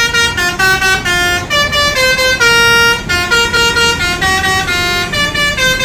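A bus horn playing a tune: a run of stepped notes, changing pitch every fraction of a second, over low traffic rumble.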